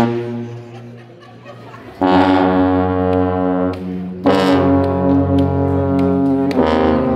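Marching band brass section with sousaphones up front, playing long held chords that ring in a school gym. A loud chord cuts off at the start and fades away over about two seconds, then three chords are held about two seconds each, starting about two, four and six and a half seconds in.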